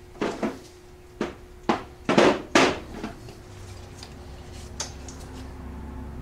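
Short rustling and scraping handling noises from gloved hands working ATV ignition wiring and plastic connectors, five quick ones in the first three seconds.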